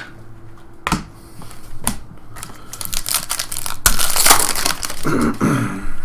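A trading-card pack's wrapper crinkling as it is torn open by hand, loudest a little before the middle. A few sharp clicks of cards being handled come first, and a short murmur of a voice follows near the end.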